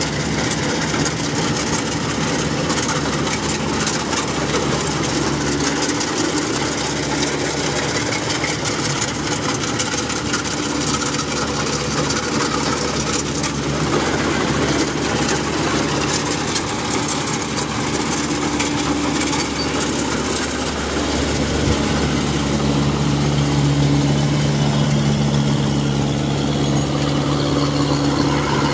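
Compact crawler rice combine harvester running steadily as it cuts ripe rice: its diesel engine drones under the clatter of the cutter and threshing machinery. The drone grows a little louder and stronger about three-quarters of the way through.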